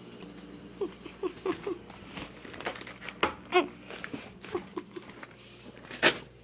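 Rummaging noises: a string of short crinkles, clicks and small squeaks, with one sharp knock near the end.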